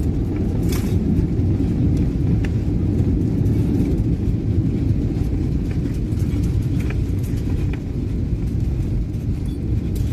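Steady low rumble of an airliner heard from inside the passenger cabin during landing, with a few faint clicks and rattles over it.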